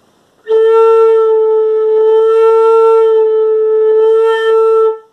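Flute holding a single note for about four and a half seconds, played with a very slow, deliberate vibrato. There is a slight waver in pitch and loudness, and the breathy edge of the tone swells and fades about three times.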